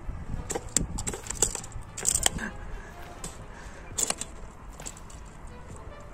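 A knife scraping along a freshly caught fish on sand, as it is scaled or cleaned: a run of short, irregular scrapes, with the last cluster about four seconds in.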